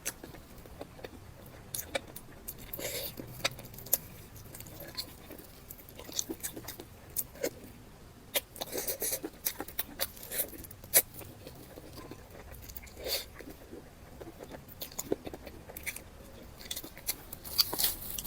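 Close-up eating sounds: irregular chewing, wet mouth smacks and small crunchy clicks of food being bitten and chewed.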